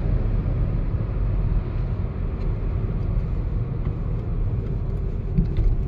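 Steady road noise inside a moving car: a low, even rumble of engine and tyres on asphalt.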